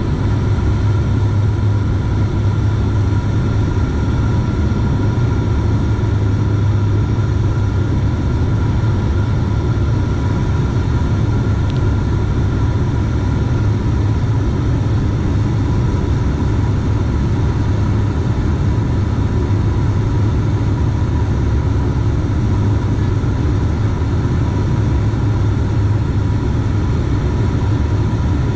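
Turboprop airliner's engine and propeller droning steadily, heard inside the passenger cabin, with the landing gear lowered on the approach. A low hum carries a thin high whine; one of the high tones fades out about halfway through.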